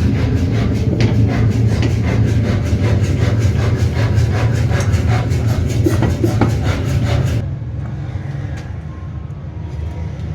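Mechanical power hammer running, striking fast and evenly at about five blows a second over a steady low machine drone. After about seven seconds the blows stop abruptly and a quieter, duller workshop noise remains.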